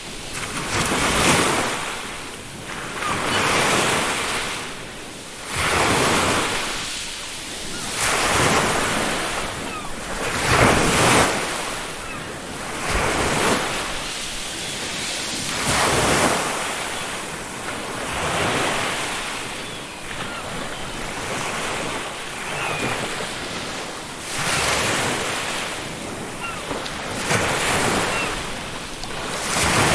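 Ocean waves breaking on a beach, each wave swelling in with a rush and falling away, about every two to three seconds.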